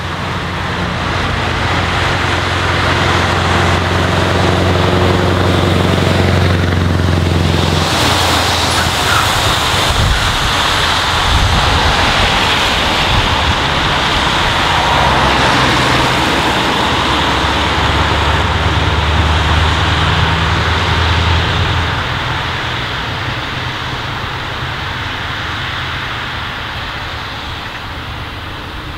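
Scania R164L 480's 16-litre V8 with straight pipes, a deep exhaust note as the truck and trailer approach and pass close by; the note changes about eight seconds in and then fades as it pulls away near the end. Tyre hiss from the wet road runs underneath.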